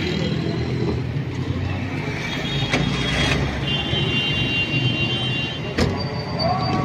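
Street traffic: the steady low rumble of passing car and motorbike engines, with a thin high tone for about two seconds midway and a sharp click near the end.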